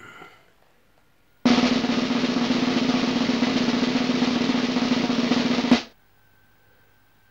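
Snare drum roll, a sound effect of about four seconds that starts about one and a half seconds in and cuts off abruptly near the end.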